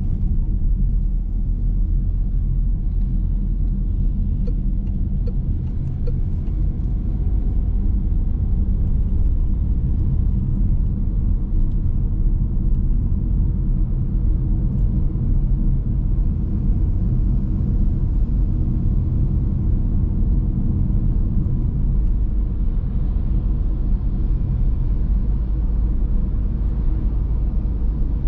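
Car driving at a steady pace on a town road: a steady low rumble of engine and tyre noise.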